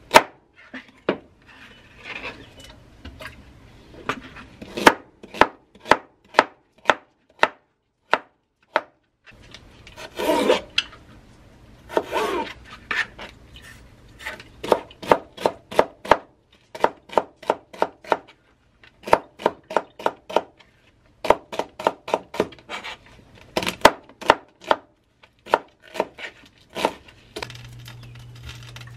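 Knife chopping vegetables (carrots, then a green vegetable) on a thin plastic cutting board, in quick runs of sharp strikes with short pauses between. There are two longer rasping sounds about ten and twelve seconds in.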